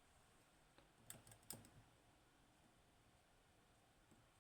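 Near silence broken by a few faint, sharp clicks about a second in: a dimple pick and tension tool working the pins of a Securemme K2 dimple lock.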